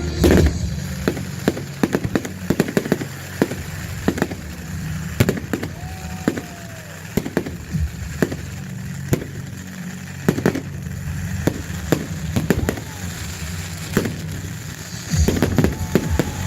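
Fireworks going off: sharp, irregular bangs and crackles, several a second, loudest just after the start and again near the end.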